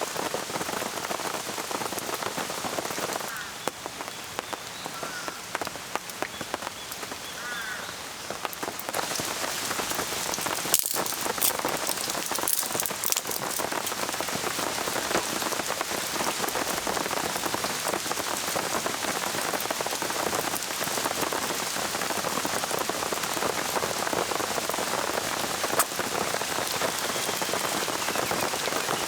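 Steady rain falling, drops pattering on surfaces. It eases a little for a few seconds from about three seconds in, and there are a few sharp drip taps around eleven to thirteen seconds in.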